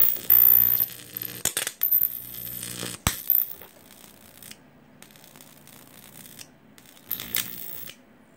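High-voltage arc from a flyback transformer driven by a mains-powered IGBT half-bridge, buzzing and crackling like a flame, with sharp snaps. It is loudest at the start, then weakens and briefly cuts out a few times as the arc shrinks.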